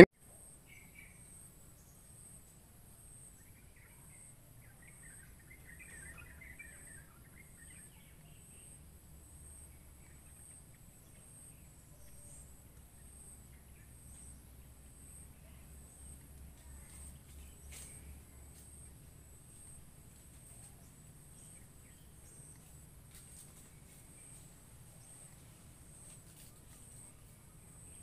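Faint background of an insect's high, pulsing trill, with a few soft bird chirps in the first eight seconds or so.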